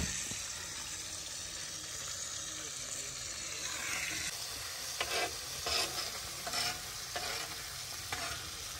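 Fish frying in oil on a large tawa griddle, a steady sizzle. In the second half a spatula scrapes against the pan about five times.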